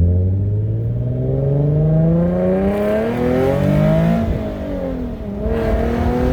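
Nissan 370Z's 3.7-litre V6 exhaust, heard from inside the car with the window down, accelerating: the engine note climbs in pitch for about four seconds, drops at an upshift, then climbs again. The stock catalytic converters are still fitted.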